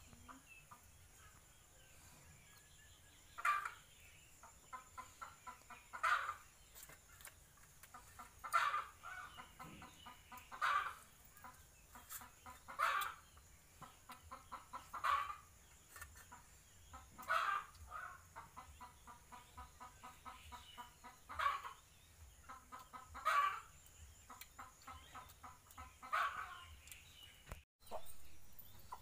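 A chicken clucking in quick steady runs, each run topped by a louder call. The louder calls come about ten times, every two to three seconds.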